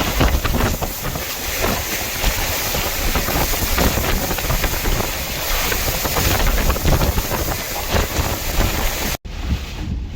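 Hurricane eyewall wind blowing hard and gusting, buffeting the microphone with a heavy low rumble under a dense hiss. About nine seconds in the sound cuts out abruptly and returns with less hiss.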